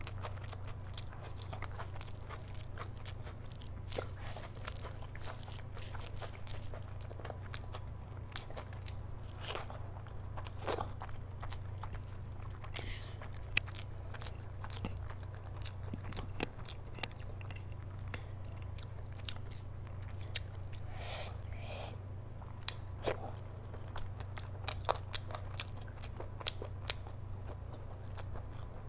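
Close-miked eating by hand: wet chewing of rice and curry with frequent sharp lip and mouth clicks, and fingers squishing rice with curry on the plate, over a steady low hum.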